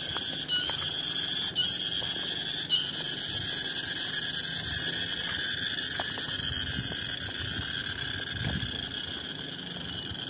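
Cicadas singing in a loud, steady, high-pitched drone. In the first few seconds it pulses about once a second; it swells in the middle and eases slightly near the end.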